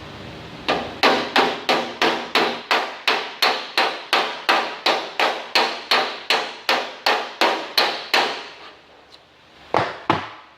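A hammer strikes the sheet-steel fender in a steady run of about twenty blows, roughly three a second, then pauses and gives two more strikes near the end. The blows are working up a low, sunken spot in the stretched fender metal.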